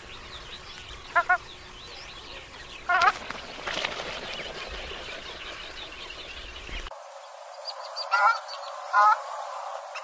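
Ruddy shelducks giving short nasal honking calls: two quick calls about a second in, another near three seconds, and two more near the end, over faint chirping of other birds.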